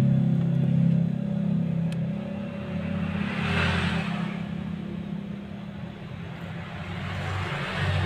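Refrigerator compressor running with a steady low hum while it pumps air out of the opened refrigerant circuit through the copper process tube, a compressor 'body vacuum'. A short hiss comes about three and a half seconds in.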